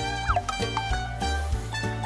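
Background music with a steady bass line and pitched instrumental notes.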